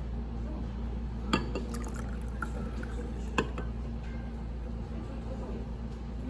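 Two sharp clinks of cups or glassware, about a second in and again two seconds later, over a steady low hum.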